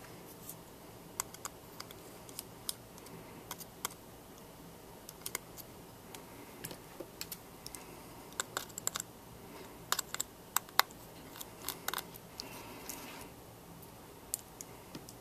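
Light, scattered metallic clicks and ticks of a precision screwdriver working tiny screws out of the metal battery-connector cover inside an iPhone 5. There is a busier run of louder clicks about two-thirds of the way through.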